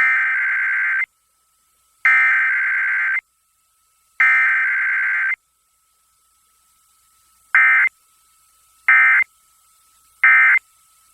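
Emergency Alert System SAME data bursts: three raspy, warbling digital header bursts about a second long and about a second apart, then after a pause three short end-of-message bursts. This header-then-EOM sequence with no attention tone or voice message is how a Required Weekly Test is sent.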